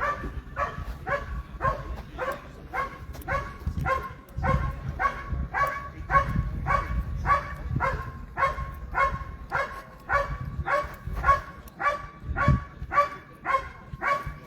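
Dog barking steadily and rhythmically, about two barks a second, each bark the same pitch.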